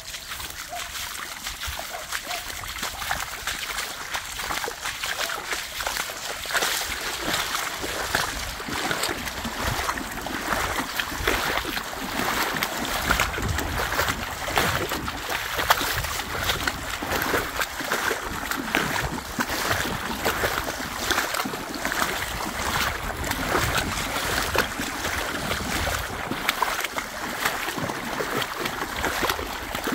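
A person and a dog wading through shallow floodwater on foot, making a continuous run of splashing and sloshing steps.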